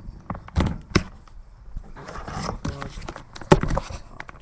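A few sharp knocks and bumps of hard objects being handled: the loudest about half a second in, just after a second in, and near the end, with rustling between them.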